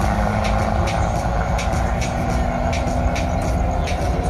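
Engine running steadily at constant revs close by, a low droning rumble, with the revs starting to climb near the end.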